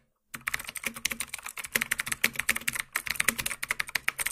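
Computer keyboard typing: rapid, uneven key clicks that start a moment in, after a brief silence. It is a typing sound effect laid over on-screen text being typed out.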